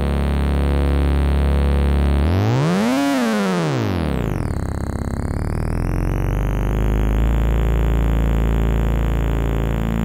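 Wavefonix 1847 wavetable oscillator droning on a low note. About two seconds in, its pitch sweeps up and back down over roughly two seconds. It then settles back into a low drone whose tone slowly shifts as the knobs are turned.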